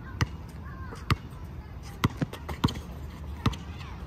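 Basketball being dribbled on a hard outdoor court: six sharp bounces at an uneven pace, about one a second, with a quicker pair about two seconds in.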